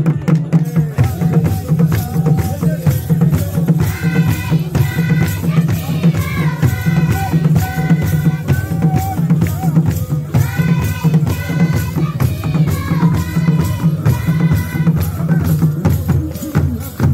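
Rwandan traditional ingoma drums beating a fast, steady rhythm for intore dancing, with high voices singing short, held phrases over the drums from about four seconds in.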